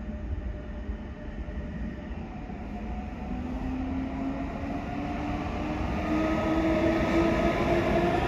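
Electric train accelerating, its motor whine rising in pitch and getting louder over the rumble of the train.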